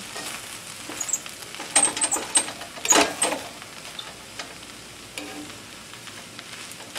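Spatula scraping and tossing fried rice in a cast-iron skillet, over a faint sizzle from the pan with the burner just turned off. The scrapes come in a cluster between about one and three and a half seconds in, then the stirring goes quieter.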